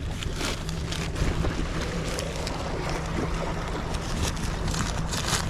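Wind buffeting the microphone over sea waves, a steady low rumble, with short scattered rustling and handling noises.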